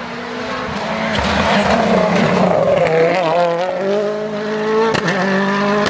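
Ford Fiesta RS WRC rally car's 1.6-litre turbocharged four-cylinder engine under hard acceleration as the car comes through and pulls away. Its pitch wavers and steps at the gear changes.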